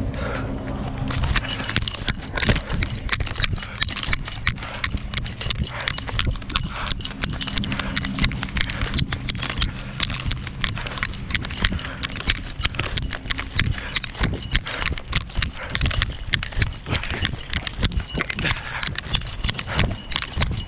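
Footsteps on a concrete walkway, picked up close by a chest-mounted GoPro as a steady run of knocks and scuffs with each stride.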